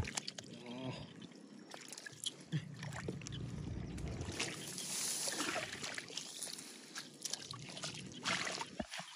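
Hands sloshing and splashing through shallow muddy water and mud, with irregular small splashes and trickles as they grope along the bottom.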